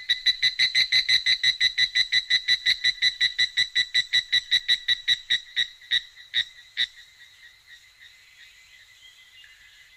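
Electronic intro sound effect: a rapid train of high beeping clicks, about five a second, that slows down and stops about seven seconds in.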